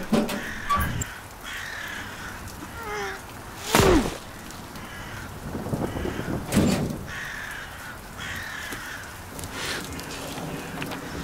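Crows cawing repeatedly, with two louder thumps about four seconds and six and a half seconds in.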